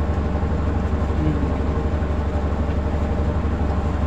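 Steady low rumble that keeps an even level throughout.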